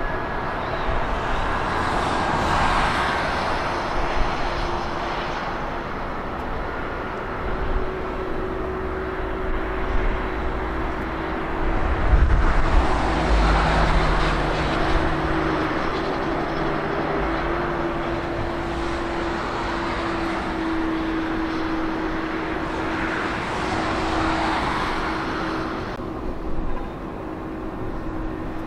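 Jet airliner engines running: a steady rushing noise with a droning hum that drifts slowly in pitch, swelling loudest about twelve seconds in.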